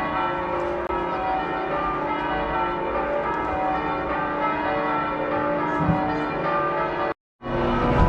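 Bells of several churches ringing at once, many overlapping strokes and pitches blending into a dense, continuous clangour. Near the end the sound cuts out abruptly for a moment, then returns with a low steady hum underneath.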